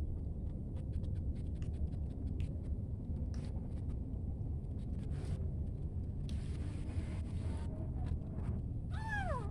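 Kitten crunching dry cat kibble, a scatter of small clicks over a steady low rumble. A short hiss comes around the middle, and near the end there is a brief meow falling in pitch.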